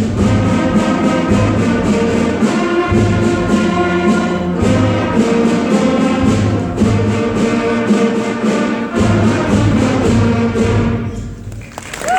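Loud orchestral music with brass and a choir over a steady low beat, fading out in the last second or so.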